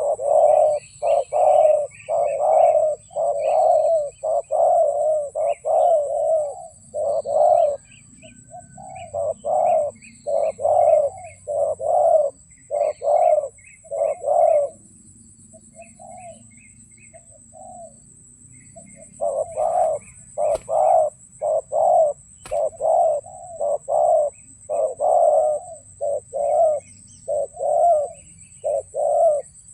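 Spotted doves cooing in a long run of loud, evenly repeated coos that thin out and turn faint about halfway through, then pick up again. A steady thin high-pitched whine runs underneath.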